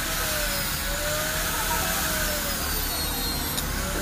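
Handheld electric drill running steadily, spinning a small wheel on a rod held in its chuck, with a slightly wavering motor whine.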